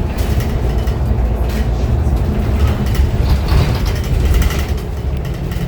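Cabin noise inside a moving articulated city bus: a steady low rumble of engine and road, with a few short rattles from the bus body.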